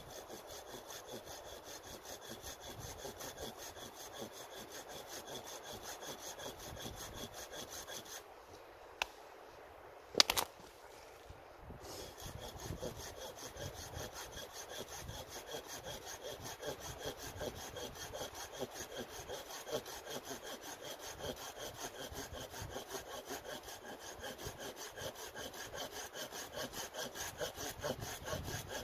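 Hand saw cutting through a thin wooden pole with steady back-and-forth strokes. About a third of the way in the sawing stops for a few seconds, with a click and a sharp knock, then resumes.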